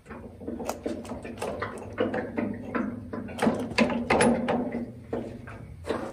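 Irregular metal knocks and scrapes of steel cultivator mounting parts on a Farmall 140 tractor being shifted and worked by foot, busiest in the middle.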